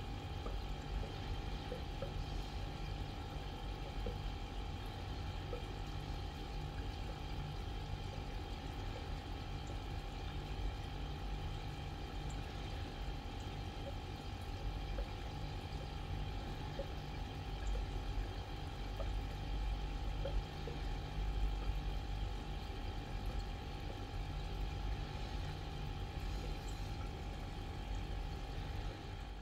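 Aquarium air pump running and a sponge filter bubbling in the water: a steady hum with a low rumble and constant bubbling.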